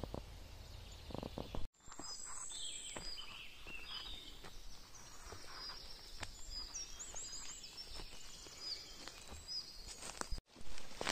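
Several forest songbirds chirping and whistling, with high, quick repeated notes, over the crackle of footsteps on the twig- and leaf-covered forest floor. The sound drops out for an instant near the start and again near the end.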